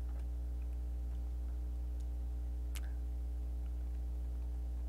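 Steady low electrical hum with a buzzy edge, with two faint clicks about two and three seconds in.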